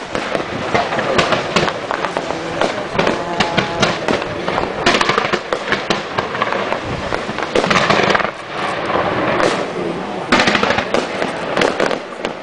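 Fireworks going off in quick succession: dense crackling and popping of low bursts, with longer rushes of noise about five, eight and ten seconds in.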